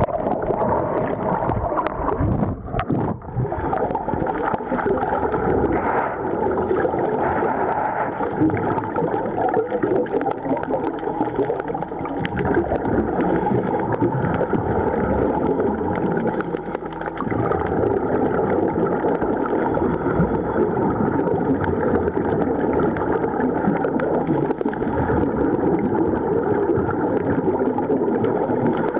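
Steady muffled underwater noise of water and rising air bubbles from divers breathing through surface-supplied hookah air hoses, heard through an underwater camera, with a brief drop about three seconds in.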